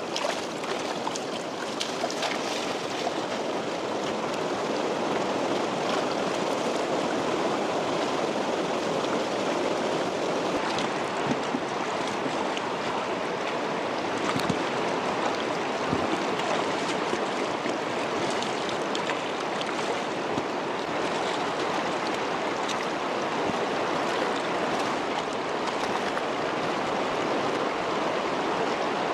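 A shallow stream flowing steadily over stones, with a few faint clicks partway through.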